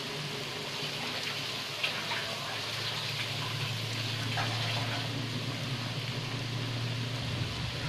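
Moringa-leaf bondas deep-frying in hot oil: a steady sizzle with a few scattered pops.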